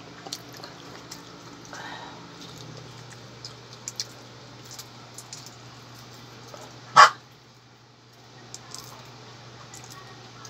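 A dog barks once, a single short bark about seven seconds in. Under it are small clicks and crackles of eggshells being peeled by hand, and a steady low hum.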